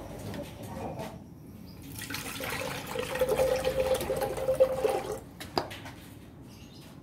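Water poured into a glass aquarium tank, splashing and churning for about three seconds, stopping about five seconds in. A single sharp knock follows just after.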